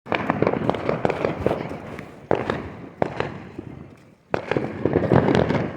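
Fireworks going off: rapid crackling and popping in dense runs, with single sharper bangs about two and three seconds in, a short lull, then another thick run of crackling near the end.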